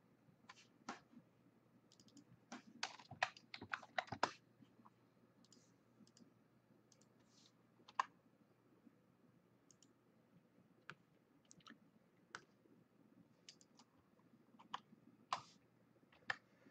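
Computer mouse clicks and keyboard keystrokes, scattered sharp clicks with a quick run of them about two to four seconds in.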